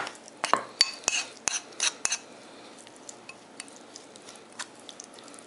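A metal spoon stirring a wet dill-and-garlic marinade in a bowl, clicking and scraping against the sides: a quick run of about eight strokes in the first two seconds, then a few faint taps.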